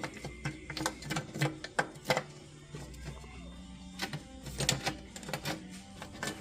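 Irregular metallic clinks and taps as a steering brake band is worked down into the steering clutch housing of a John Deere 450C dozer.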